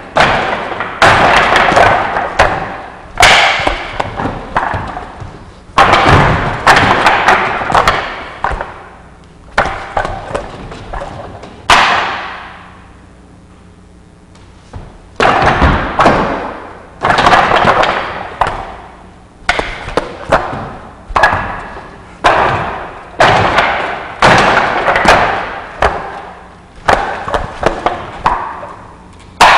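Arms and hands striking a Wing Chun wooden dummy (mook jong) in quick runs of sharp wooden knocks and thuds, as a section of the dummy form is performed. The strikes come in bursts, with a pause of about three seconds midway.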